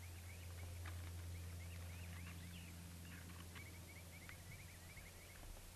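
Songbird chirping faintly in runs of quick, repeated high notes, over a steady low hum.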